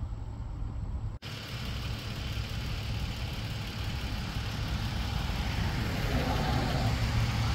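A car coming along the road, getting louder toward the end, over a steady low rumble. The sound drops out for an instant about a second in.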